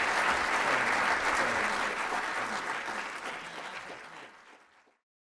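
Audience applauding, the clapping fading out over the last two seconds and then cutting off.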